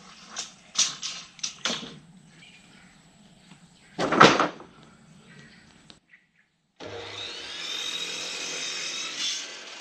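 Wooden deck boards knocking as they are handled, then a short loud burst about four seconds in as a board is cut on an electric cut-off saw. Near the end a handheld power saw spins up and runs steadily, cutting along a pine board.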